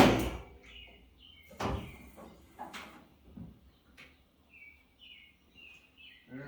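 A few sharp knocks and clunks, with short high chirps of a small bird at intervals in between. It opens on a loud noisy burst that dies away within half a second.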